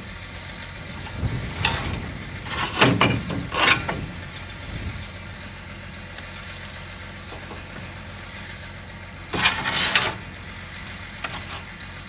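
Short metallic clanks and clatters of a battery, its clamp and leads being handled while a flat battery is swapped out, a few around two to four seconds in and another cluster near the end. A steady engine-like drone runs underneath.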